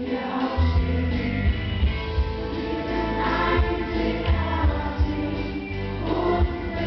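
Pop music with a strong, steady bass beat and choir-like sung vocals, played over a hall's sound system.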